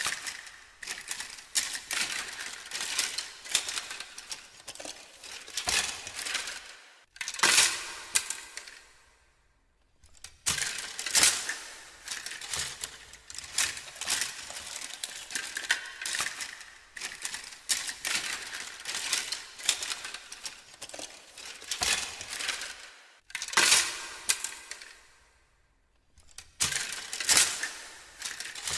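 Rummaging through a pile of small hard objects: a continuous clatter and rattle of items being shuffled and knocked together. It is broken twice, about a third of the way in and again near the end, by a louder clank whose echo fades away over a couple of seconds.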